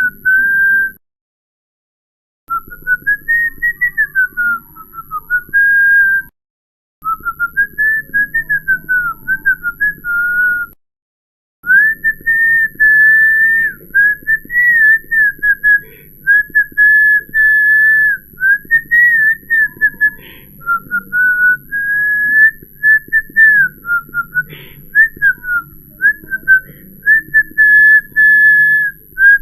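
A person whistling a meandering tune of short notes and sliding pitches. It cuts to silence three times in the first twelve seconds, then runs on as longer held notes.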